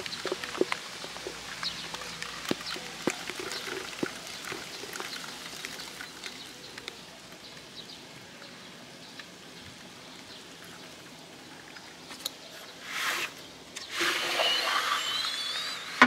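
Rain falling and dripping, with many small scattered drip ticks; near the end a louder rush of noise comes twice.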